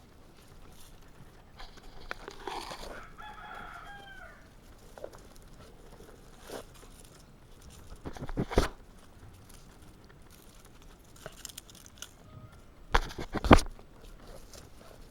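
A drawn-out animal call with several stacked pitches that bends downward at its end, followed by a few sharp knocks, the loudest a quick cluster near the end.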